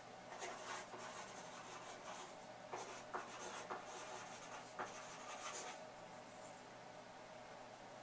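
Quiet room tone picked up by a Cisco camera's built-in microphone: steady hiss and a faint hum, with soft rustling and scratching and several small clicks through the first six seconds, then mostly the hiss.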